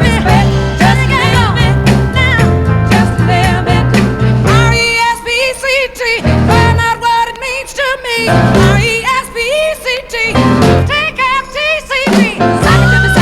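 A rhythm and blues record playing, with a singing voice over the band. About five seconds in, the bass and drums drop out, leaving short stop-time hits, and the full band comes back in near the end.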